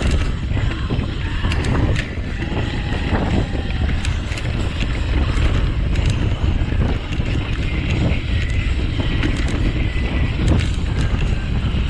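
Wind buffeting the microphone over the rumble of a mountain bike's tyres on a rough dirt trail during a fast descent, with frequent small knocks and rattles as the bike goes over bumps.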